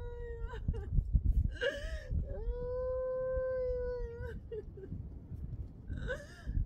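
A young child crying: two long, steady wails, the second about two seconds long, with short, higher sobbing cries between them.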